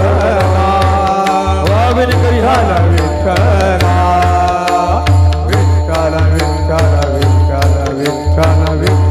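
Marathi Varkari kirtan music: a gliding melody line over a steady, repeating low drum beat, with frequent sharp cymbal-like strikes.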